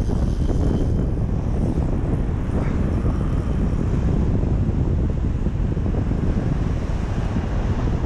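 Strong wind buffeting the microphone: a loud, steady low rumble that covers everything else.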